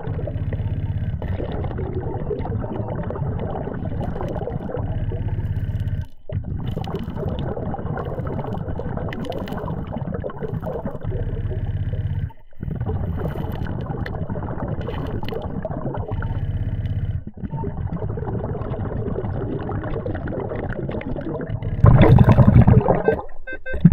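Underwater sound of a dive: a steady low rumble with bubbling and gurgling water. It drops out briefly three times and gets louder near the end.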